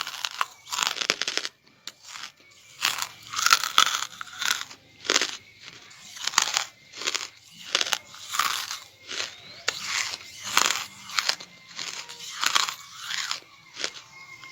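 Charcoal being bitten and chewed close up: sharp, crisp crunches one or two a second, with a short pause a couple of seconds in.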